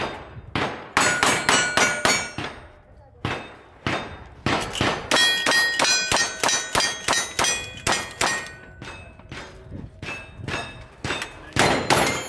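A fast string of rifle shots at steel targets, each hit ringing out with a metallic clang, with short pauses between bursts and a loud cluster of hits near the end.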